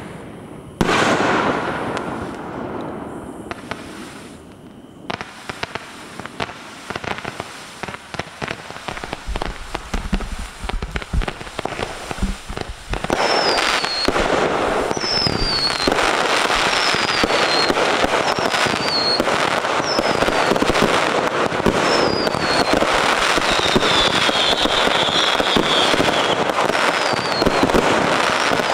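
Fireworks going off: a loud bang about a second in, then scattered crackling pops. About halfway through it builds into a dense, continuous barrage of bursts and crackle, with short falling whistles about once a second.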